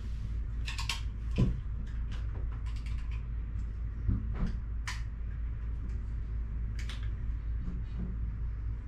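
Short, scattered squeaks and creaks of a hand pressing and rubbing a peel-and-stick caulk strip flat against the plastic tub and surround, over a steady low hum.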